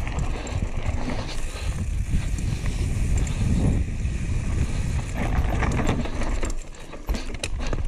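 Mountain bike descending a loose dirt and rock trail at speed, heard from an action camera on the rider: a heavy low rumble of wind and tyres on the ground, with many sharp clicks and knocks as the bike clatters over stones and bumps.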